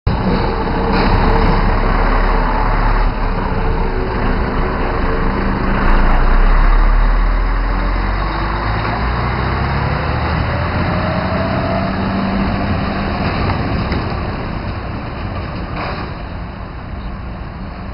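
Alstom Citadis 302 tram standing at a platform, its onboard equipment running with a steady mechanical hum and whir. A faint rising whine comes in about ten seconds in, and a couple of light clicks are heard early on. The hum eases off slightly toward the end.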